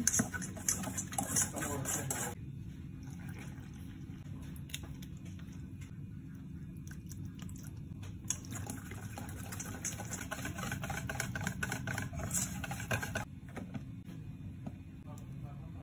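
Pancake ingredients being stirred and added in a stainless steel bowl: two stretches of scraping and rustling, one in the first couple of seconds and one from about the middle, over a steady low hum.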